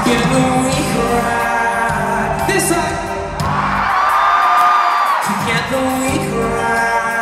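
Live pop-rock band playing with a lead singer, heard from the arena audience. About three and a half seconds in, the bass and drums drop out for about two seconds while a single high note is held, then the full band comes back in.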